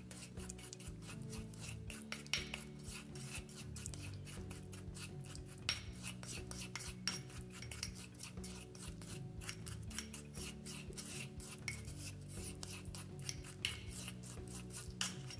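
Wooden spoon scraping and clicking against a ceramic bowl in quick repeated strokes, stirring a thick, gritty paste of coffee grounds, honey and red palm oil.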